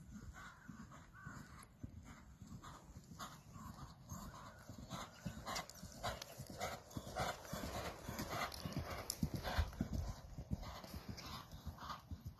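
A ridden horse's hoofbeats thudding on a sand arena surface, a run of quick, uneven strikes that grow louder toward the latter part as the horse comes near, then fade a little.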